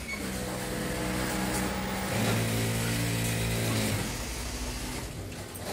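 Industrial sewing machines running at speed, a steady mechanical hum and buzz at an even pitch that grows louder for a couple of seconds in the middle and then dies away.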